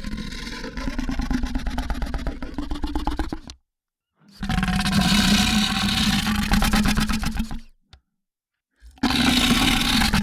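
Monster creature vocal sound effect: low, rough growls, three of them separated by short silences, the first already going at the start and the last running on past the end.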